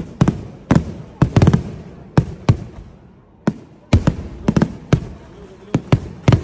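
Fireworks display: aerial shells bursting in rapid, irregular loud bangs, two or three close together at times. There is a lull a little past halfway, broken by a single bang, before the bangs resume thick and fast.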